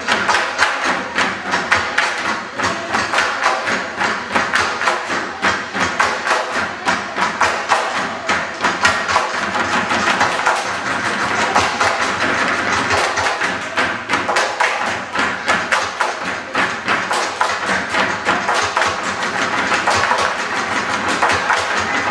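Bamboo poles knocked together and struck on a wooden floor in a steady rhythm, as in the tinikling bamboo dance, over music.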